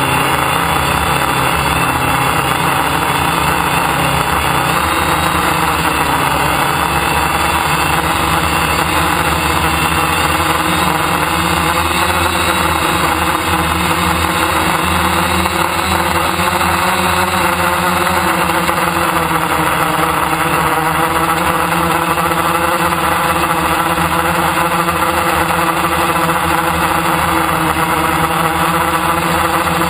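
DJI F550 hexacopter's six brushless motors and propellers running in flight, a steady loud whirring hum of several tones whose pitches drift slightly as the motor speeds adjust.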